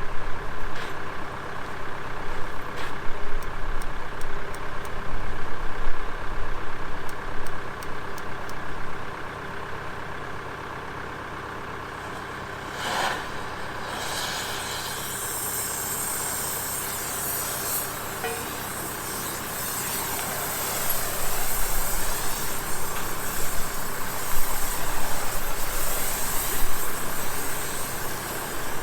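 Tractor engine running steadily. A short burst of noise comes about thirteen seconds in, and a hiss lies over the second half.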